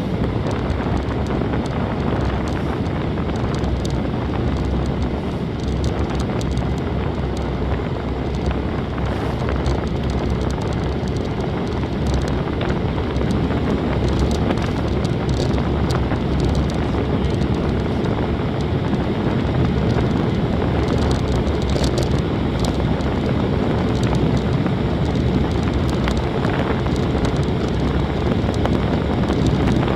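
Steady rush of wind buffeting the microphone of a bicycle-mounted camera on a fast downhill ride, mixed with the rumble of the tyres on the road.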